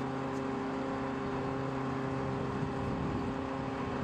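A large engine running steadily at a constant speed, a continuous low hum that holds the same pitch throughout.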